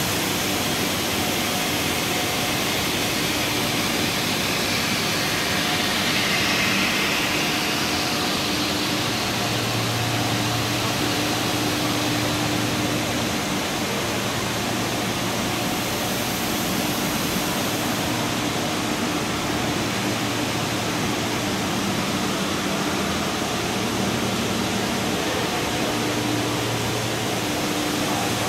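Steady noise of a running WPC decking profile extrusion line: an even hiss with a low hum and a few steady tones underneath.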